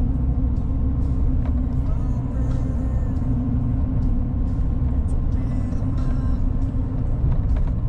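Interior drone of a moving pickup truck: steady engine and tyre road noise heard inside the cab, a low even rumble.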